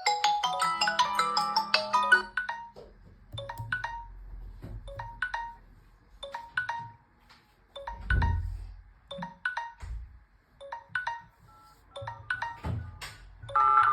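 Smartphone ringtone playing from the phone's speaker: a fast, busy melody that breaks off about two seconds in, followed by a slower tune of separate short notes. A couple of low thumps come in the middle.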